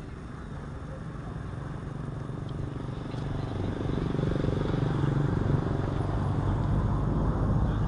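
A motor vehicle's engine running, a low hum that grows louder over the first four seconds or so and then holds steady.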